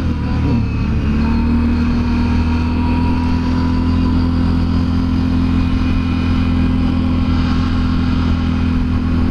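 Can-Am Renegade 1000 ATV's V-twin engine running under way at steady revs, heard through the rider's helmet microphone. Its pitch dips briefly about half a second in, then holds level.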